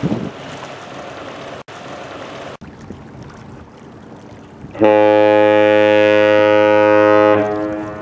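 A Great Lakes freighter sounds one long blast on its horn: a deep, steady tone lasting about two and a half seconds, starting about five seconds in. Before it there is wind and water noise.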